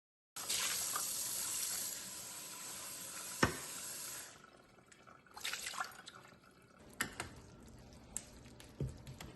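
Kitchen tap running for about four seconds, then shut off, with a sharp click partway through. Afterwards come a few light clinks and knocks of kitchenware.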